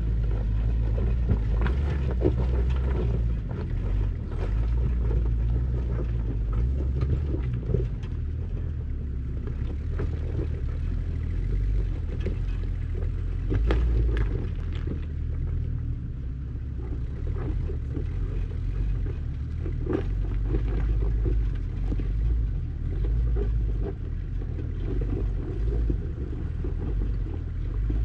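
An off-road vehicle's engine running under load as it climbs a steep, loose rocky slope, heard as a steady deep rumble with scattered short knocks.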